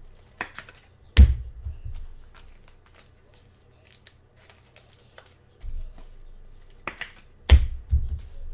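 Trading cards and packs being handled on a table: small clicks and rustles of cards being flicked through, with two louder sharp knocks about a second in and near the end.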